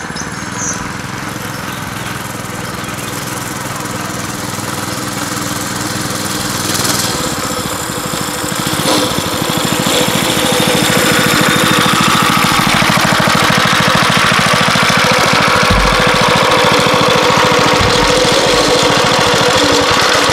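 Mini bike's small single-cylinder engine held wide open on a top-speed run, growing louder as the bike comes up the road and then holding loud and steady. The governor spring is zip-tied, and it revs out only a little farther than with the governor working.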